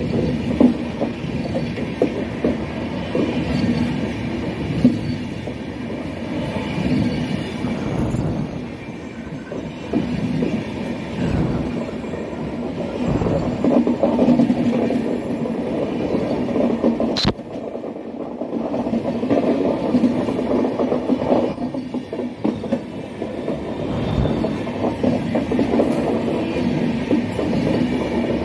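Indian Railways LHB passenger coaches rolling past close by: a steady rumble with repeated knocks of the wheels on the rails. There is one sharp click about seventeen seconds in.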